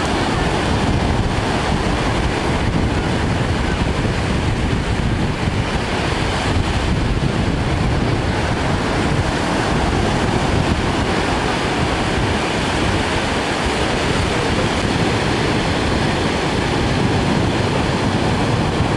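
Sea surf washing onto a beach, with wind buffeting the microphone in a steady loud rush.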